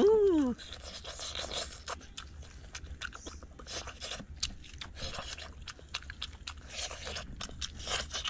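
A man chewing and smacking his lips while eating grilled meat in chili sauce, in irregular wet clicks and smacks. It opens with a short voiced sound that rises and falls in pitch.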